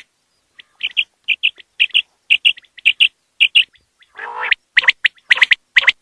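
Common quail calling: short, high paired notes repeated about twice a second, a longer, harsher and lower call about four seconds in, then the paired notes again, louder.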